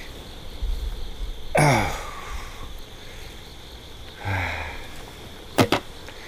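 A man's wordless groan falling in pitch, a groan of disappointment, then a short sigh-like exhale. Near the end come two sharp knocks as the landed carp is handled out of the landing net.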